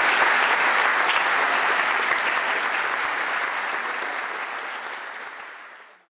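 Audience applauding, the clapping slowly fading and cutting off about six seconds in.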